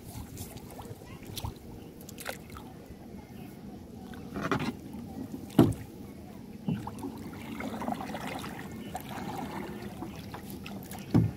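Water sloshing around a small wooden boat as a bamboo pole is worked in the water. Two sharp knocks come about four and a half and five and a half seconds in, and a lighter one follows a second later.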